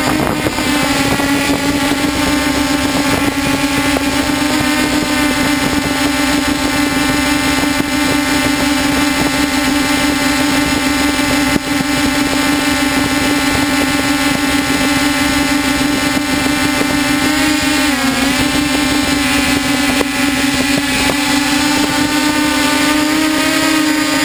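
DJI F550 hexacopter's six brushless electric motors and propellers, heard from on board, with a steady buzzing whine. The pitch dips briefly about eighteen seconds in as the throttle changes, then recovers and climbs a little near the end.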